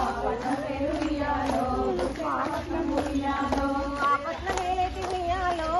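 Group of women singing a Bathukamma folk song together in long held notes, with sharp hand claps about twice a second.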